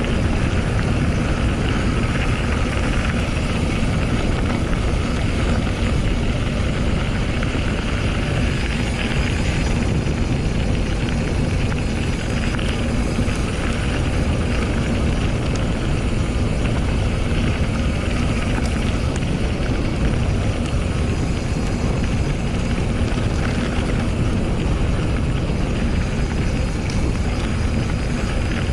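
Steady wind rumble buffeting the action camera's microphone as a mountain bike rides along, with the rolling noise of the bike over the trail mixed in. The noise is loud and unbroken, heaviest in the deep rumble.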